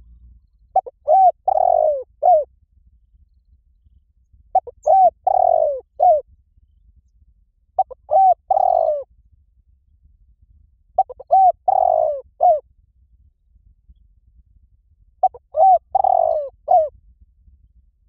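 Spotted dove cooing: five matching phrases about three and a half seconds apart. Each phrase is a quick run of low coos with one longer note before a last short coo.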